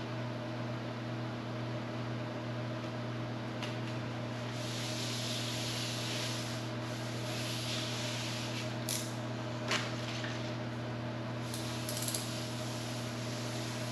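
Self-adhesive spun-neoprene strip being pressed and rubbed on along the edge of a panel by hand: a few seconds of rubbing hiss in the middle, with a few light clicks after it, over a steady machine hum in the shop.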